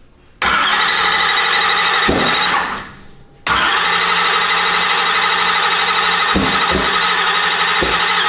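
Starter motor cranking a turbocharged drag-race engine in two long, steady whining bursts, with a few sharp pops, and the engine not catching. The crew take it for ignition or cam timing being off, and it has been backfiring.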